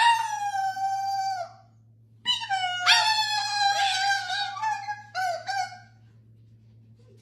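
A parrot howling like a dog: two long, wavering howls, the second opening with a rising swoop, then a short third one.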